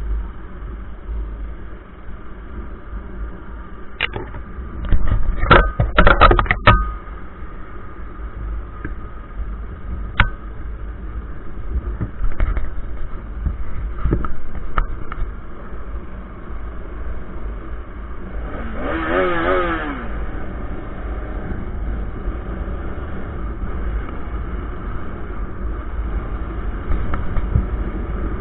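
Motorcycle riding at speed, heard from the bike itself: steady wind rumble on the microphone over engine and road noise. A few loud knocks come about five to seven seconds in, and a short wavering pitched tone about two-thirds of the way through.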